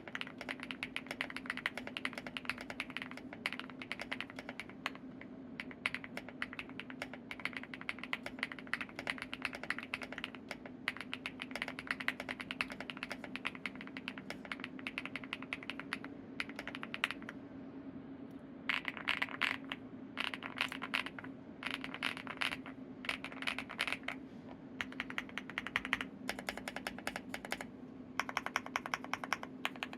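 Continuous fast typing on a Leobog HI75 mechanical keyboard with stock HMX EVA switches and NovelKeys Cherry Sage keycaps: a dense stream of key clacks. There are a few brief pauses, the longest a little past the middle.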